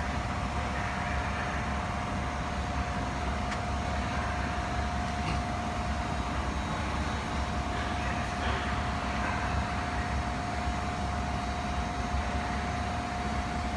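Favretto grinder running steadily: a constant low mechanical hum and even hiss with a single steady whine above it.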